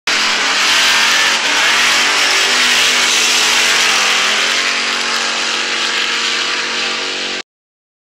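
A car engine revving hard as an intro sound effect, loud, with a strong hiss over the engine note. The pitch dips briefly about four seconds in, and the sound cuts off suddenly near the end.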